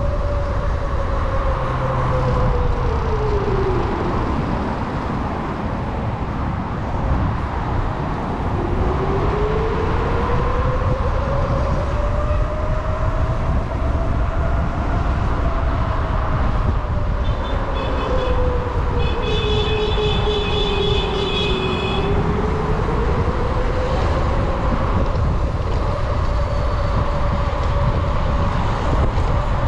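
Electric motor whine rising and falling in pitch as the ride slows and speeds up, over steady wind and road rumble. A short run of rapid high beeps comes about two-thirds of the way through.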